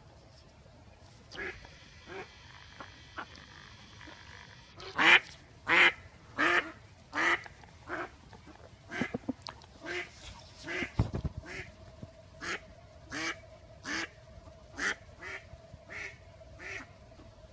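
A live decoy duck quacking in a long, even run of calls, about one every two-thirds of a second. The calls are faint at first and louder from about five seconds in. This is the calling that draws wild drakes in. A single low thump comes about eleven seconds in.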